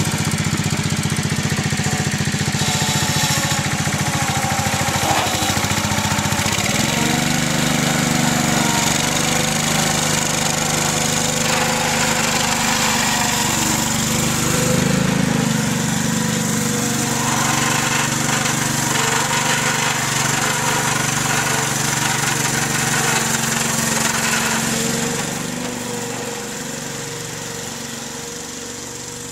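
Small engine of a ride-on backyard-scale diesel-outline locomotive running steadily under load as it pushes through snow. Its note shifts about a quarter of the way in, and the sound fades near the end.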